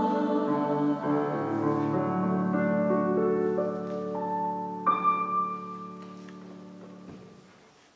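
Piano playing the closing chords of a hymn, the held chords slowly fading; a last high note is struck about five seconds in and dies away.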